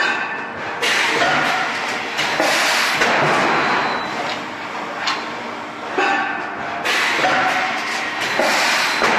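Automated plastic flower pot production line running: steady machinery noise with sharp clunks, and a rush of noise that returns about every six seconds as the machines cycle.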